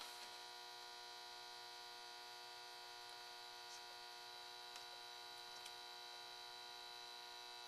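Near silence with a steady, faint electrical hum and a thin high whine, broken only by a few faint ticks.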